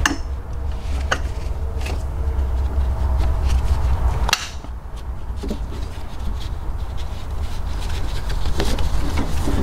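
Scattered clicks and scrapes of a socket, ratchet and pipe breaker bar on the serpentine belt tensioner as it is levered to slacken the supercharger belt, with one sharp knock about four seconds in. A steady low hum runs underneath.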